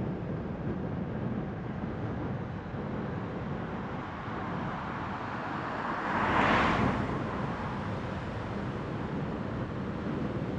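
Steady road and tyre noise from a car driving on a rain-wet street. About six seconds in, a louder whoosh of tyre hiss swells and fades within about a second.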